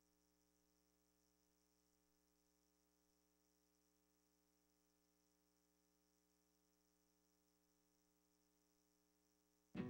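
Near silence with a faint, steady electrical mains hum. Music cuts in right at the end.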